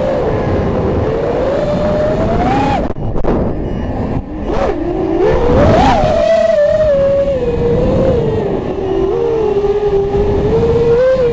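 FPV racing quadcopter's brushless motors whining, their pitch rising and falling with the throttle, over wind rush on the onboard camera's microphone. The pitch climbs, dips sharply about three seconds in, peaks about six seconds in, then settles lower and steadier.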